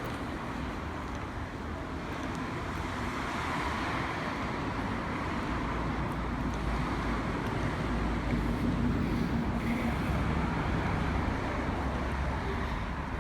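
Steady street traffic noise from passing road vehicles with a low rumble, growing a little louder about halfway through.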